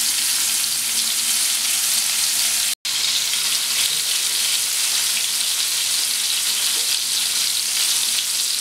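Pieces of marinated tuna shallow-frying in hot oil in a pan: a steady sizzle. The sound cuts out briefly a little under three seconds in.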